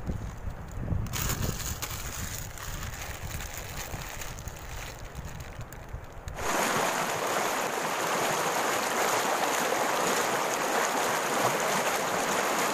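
Wind rumbling on the microphone. About six seconds in it cuts abruptly to the louder, steady rush of river water tumbling over rapids.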